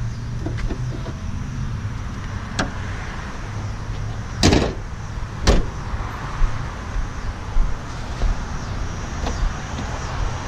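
Two heavy slams about a second apart as the car's panels are shut, with smaller knocks around them, over a steady low hum.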